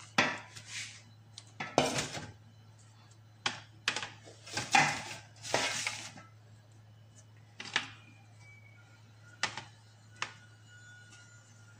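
Aluminium steamer pot knocked and clanked about on a stone countertop while small batter-filled molds are set down inside it. About a dozen irregular knocks and clatters are spread through, with a steady low hum underneath.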